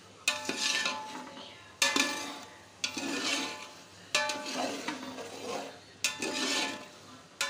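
Metal spoon stirring chickpeas in an oily masala in a steel pot: about six strokes, each starting with a clank of the spoon against the pot, then a wet scrape with a brief metallic ring.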